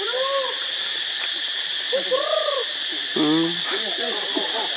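Macaque coo calls: three short, arched, tonal calls that rise and fall in pitch, over a steady high drone of insects.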